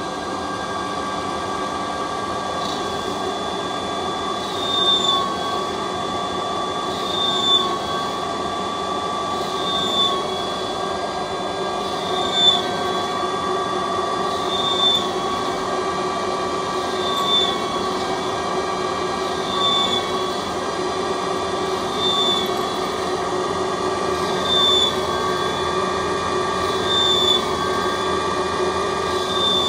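CNC lathe running with a steady whine of several held tones while a grooving tool cuts into a spinning metal shaft held between chuck and tailstock centre. From about four seconds in, a short high squeal of the tool in the metal comes about every two and a half seconds, one for each groove cut, about eleven in all.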